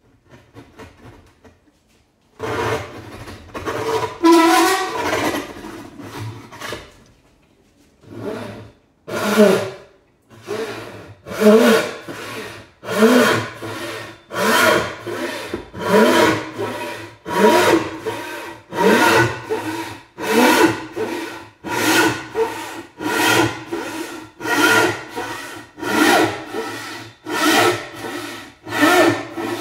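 ECE 700 mm wooden frame saw with a fine-toothed Japanese universal turbo cut blade rip-sawing a board, each stroke a rasping burst. After a faint start and a few seconds of quicker strokes there is a brief pause. Then the saw settles into an even rhythm of long strokes, about one every one and a half seconds.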